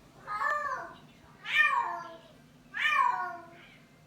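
Female Bengal cat in heat yowling: three loud drawn-out calls, each sliding down in pitch.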